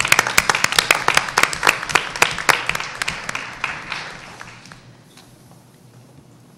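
Audience applauding, fading away about four to five seconds in.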